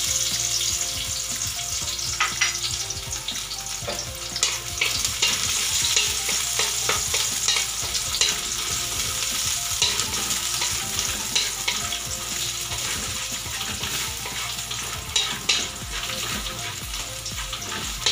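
Sliced garlic sizzling in hot oil in a metal wok, sautéing until lightly browned. A wooden spatula stirs it, with scattered short scrapes and taps against the pan.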